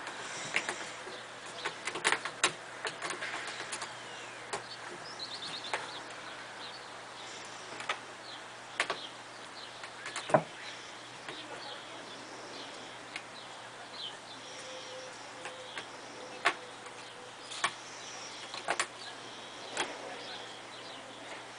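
Scattered knocks and taps as two cats scuffle on a carpeted cat tree, the loudest about halfway through. Faint bird chirps and a steady low hiss sit in the background.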